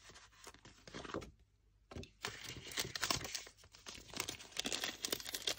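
Clear plastic sheet crinkling and rustling as it is handled, with light paper rustles from crafting by hand; a few scattered rustles at first, then a short lull, then steady dense crinkling from about two seconds in.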